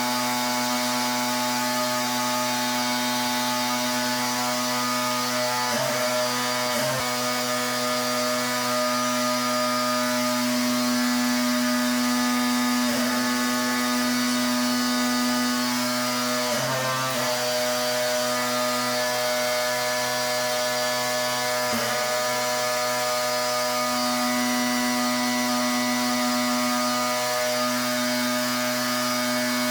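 Pressure washer running steadily: a constant machine drone under the hiss of the water jet, briefly faltering a few times.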